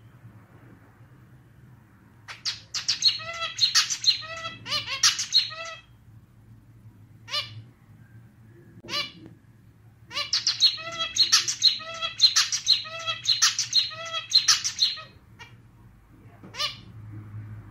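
Male zebra finch singing, its song sounding like a small, slightly out-of-tune clarinet. There are two bouts of rapid repeated notes, one starting about two seconds in and another about ten seconds in, with single short calls between and after them.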